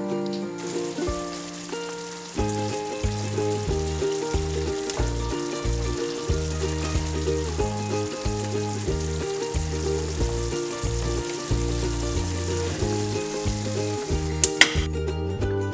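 Sliced beef and onions sizzling and simmering in sauce in a stainless steel frying pan, stirred with a silicone spatula, under steady background music. A single sharp knock comes near the end as the pan is lifted off the grate.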